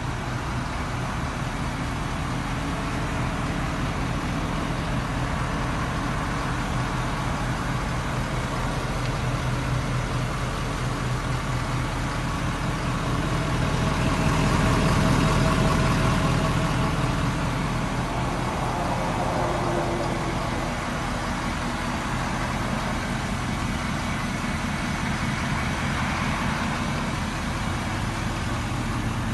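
Ford 6.7L Power Stroke V8 turbodiesel idling steadily with an even low pulse, a little louder around the middle.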